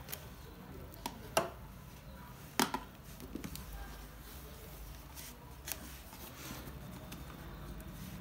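Handling noise from a small wooden box being picked up and turned over in the hands: a handful of short, sharp knocks and taps, the loudest a close pair about two and a half seconds in, over a faint low hum.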